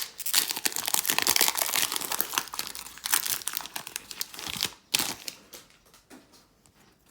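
Foil wrapper of a Pokémon TCG booster pack being crinkled and torn open, a dense crackling that stops about five seconds in, followed by a few faint clicks.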